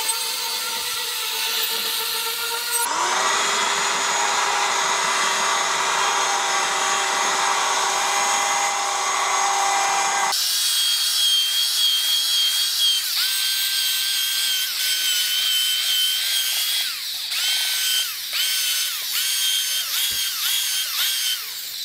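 Angle grinder with an abrasive disc grinding rust off a steel plate. About ten seconds in it gives way to a belt sander sanding the plate, whose higher whine dips briefly several times toward the end.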